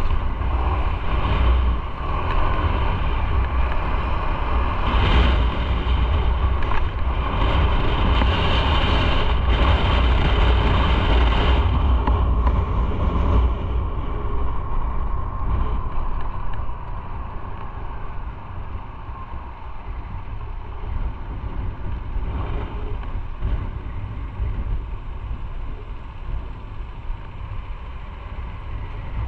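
Motorcycle riding with its engine running under wind rushing over the microphone. About halfway through, the engine note falls and the sound grows quieter.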